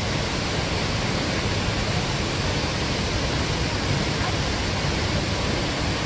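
A waterfall pouring over a sandstone ledge into its plunge pool: a steady, even rush of falling water that does not let up.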